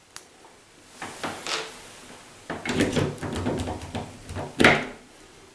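Metal door-handle hardware being handled: scattered light clicks, then a run of rattling knocks, and one sharper, louder clack near the end.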